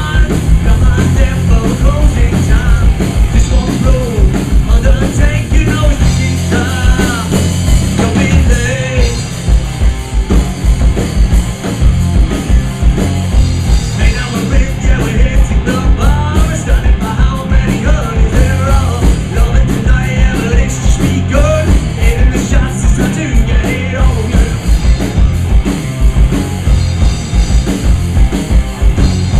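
Loud rock music from a full band, with a driving drum kit and a heavy bass line under a melodic lead.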